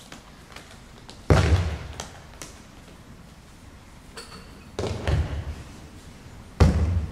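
Three heavy thuds of a body falling onto tatami mats as an aikido partner takes breakfalls after throws: about a second in, near the middle, and near the end.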